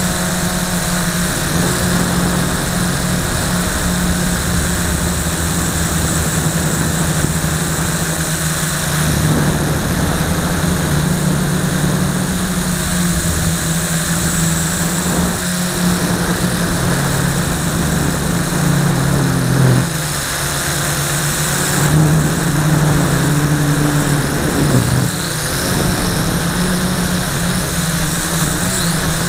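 LaTrax Alias quadcopter's motors and propellers buzzing in flight, heard up close from a camera strapped to the drone, the pitch stepping up and down as the throttle changes.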